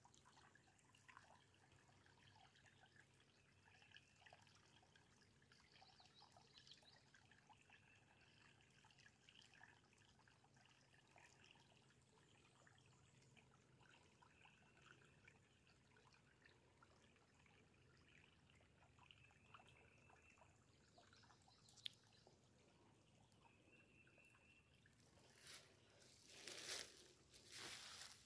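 Faint trickling of a shallow stream running over the forest floor. Near the end, a few footsteps on leaf litter, the loudest sounds.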